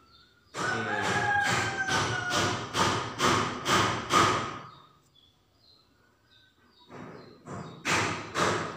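Music with a steady thumping beat, about three beats a second, that stops about five seconds in and comes back briefly near the end.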